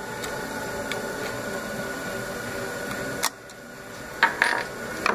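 Small metal clinks and taps as a hex key works the screws of a Juki LK-1900B bartacker's work clamp and the clamp is taken off. A steady hum runs underneath and drops away about three seconds in, and a few sharp clinks follow near the end.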